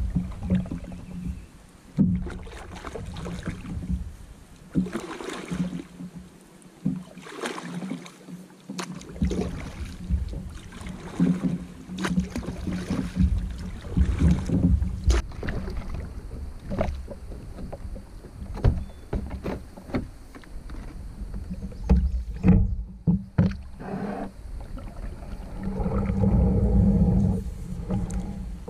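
Double-bladed kayak paddle strokes in calm water: repeated dipping splashes and drips, with scattered sharp knocks.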